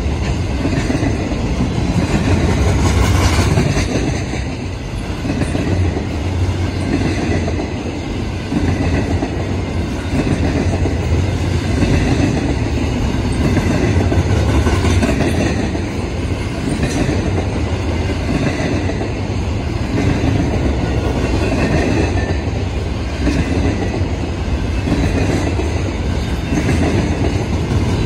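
Loaded freight cars of an intermodal train rolling past at speed: a steady, loud rumble of steel wheels on rail with clickety-clack from the wheels passing over the rail joints and crossing.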